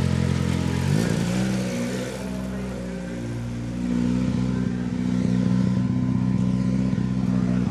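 Rallycross car's engine running, its pitch gliding up about a second in and then holding steady.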